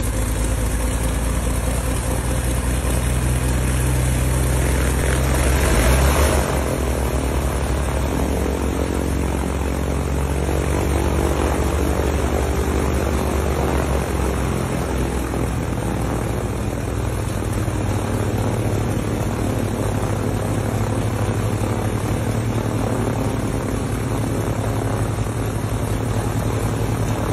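A Cessna 310's twin six-cylinder piston engines running on the ground with both propellers turning: a steady low drone, with a brief louder rush of noise about six seconds in.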